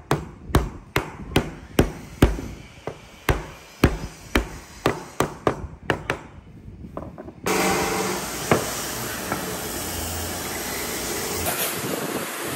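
Wooden mallet knocking a wooden joint together in a timber beam, about two blows a second for some seven seconds. The blows stop suddenly, giving way to a steady hiss with one more light knock.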